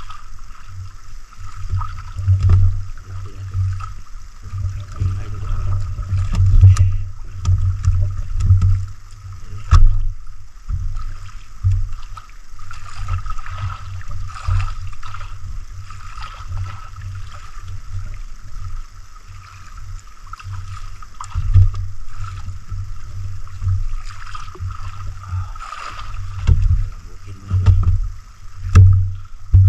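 Small boat on the water: irregular low rumbling and knocking as the hull rocks and the diver shifts and handles gear aboard, over a steady high hum.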